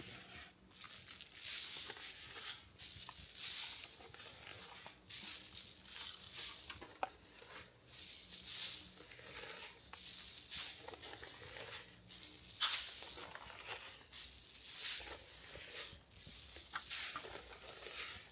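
Clover seed being broadcast by hand, scattering onto dry ground and leaf litter in repeated short hissing bursts, about one every second or two.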